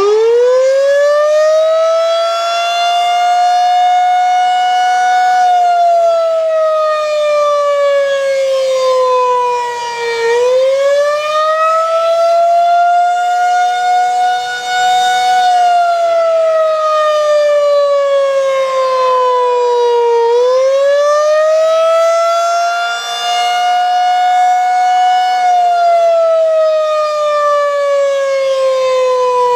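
Federal Signal 2001-SRNB electromechanical warning siren sounding the attack signal in a scheduled test: it winds up to full pitch in the first few seconds, then its wail slowly falls and climbs back up about every ten seconds.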